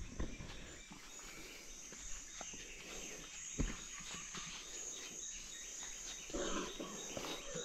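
Steady high-pitched drone of forest insects, with a single sharp knock about three and a half seconds in.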